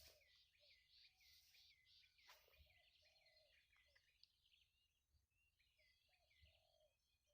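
Faint bird calls in near silence: a quick series of repeated chirps that thins out after about four seconds, with a few lower notes in between.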